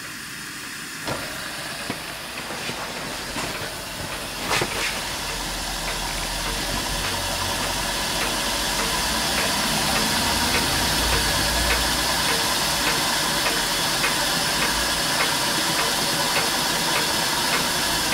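Steam hissing from the jets of a scratch-built horizontal Hero engine (aeolipile), growing steadily louder as the copper rotor drum begins to spin, with a few sharp clicks in the first five seconds and a faint regular tick later. The boiler pressure is only just enough to turn the rotor.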